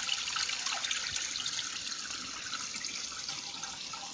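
Water flowing and trickling over rocks in a shallow stream: a steady, even rush that eases slightly toward the end.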